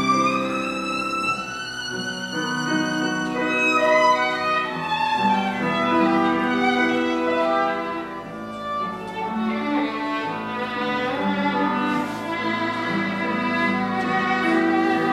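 Violin playing a melody of held notes with grand piano accompaniment; the violin line climbs in pitch over the first few seconds.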